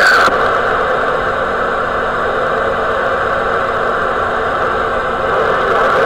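CB radio receiver static from the speaker: a distant station's transmission cuts off just after the start, leaving a steady hiss of band noise with no station on the channel.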